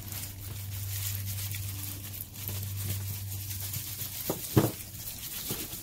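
A perforated plastic bag of flower bulbs crinkles and rustles as it is handled. About three-quarters of the way through come a few sharp knocks as bulbs tip out onto a plastic table.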